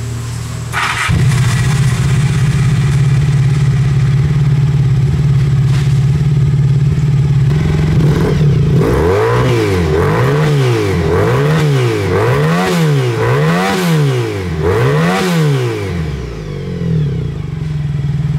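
Honda VF1000 V4 motorcycle engine in a home-built buggy idling steadily. It is then revved up and back down about five times in quick succession and settles back to idle.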